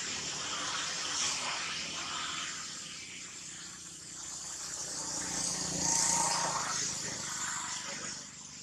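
A vehicle passing, swelling to its loudest about six seconds in and fading near the end, over steady outdoor background noise.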